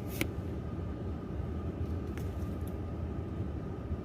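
Steady low background rumble, with two faint light clicks, about a quarter second in and about two seconds in.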